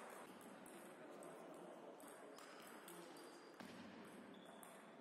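Faint, sharp clicks of a table tennis ball striking the bats and the table during a rally, at uneven intervals, in a large hall.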